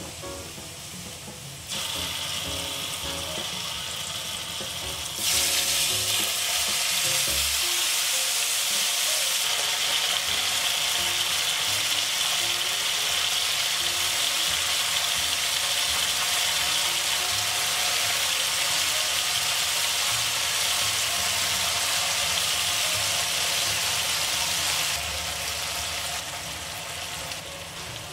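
Hot oil sizzling in a nonstick pan as dried red chillies and chopped garlic fry. The sizzle grows louder twice in the first few seconds, holds steady, and eases off near the end.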